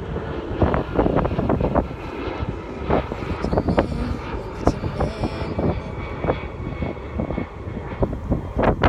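Wind gusting and buffeting the microphone in irregular bursts over a steady low drone.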